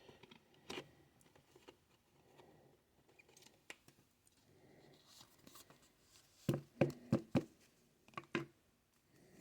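Faint handling of trading cards, with light rustles and small clicks, then a short run of sharper taps and clicks about six and a half to eight and a half seconds in.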